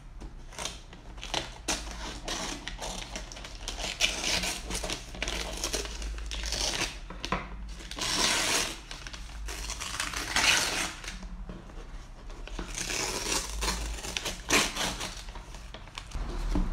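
Brown kraft-paper parcel wrapping being handled and torn off a cardboard box: a few sharp snips and clicks from scissors at first, then repeated bursts of paper tearing and crinkling.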